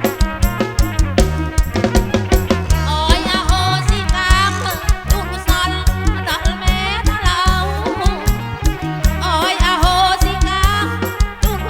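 Live amplified kantrum folk music: a steady, busy drum beat under a high, wavering melody with heavy vibrato.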